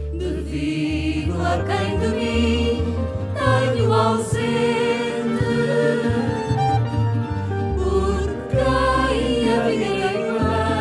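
Live fado-inspired music: piano and double bass playing under a sung melody, with sustained low bass notes and a wavering, vibrato-laden line above.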